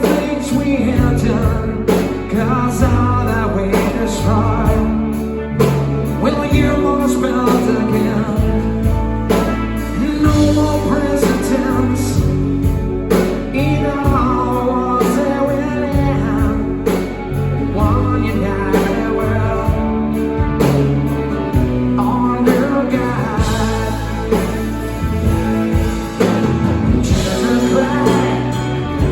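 Live rock band playing a slow power ballad, with melodic lines over steady bass and drum hits.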